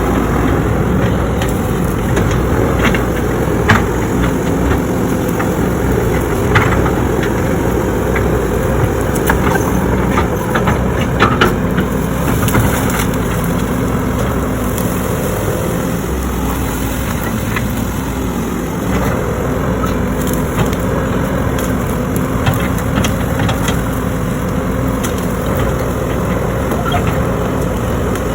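Heavy digging machine's diesel engine running steadily under work, with scattered sharp cracks and snaps, most of them in the first half, as wood and brush are broken during land clearing.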